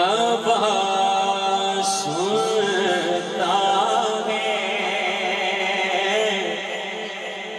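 A male naat reciter sings a long, drawn-out melismatic phrase of an Urdu hamd without instruments, over a steady sustained vocal drone.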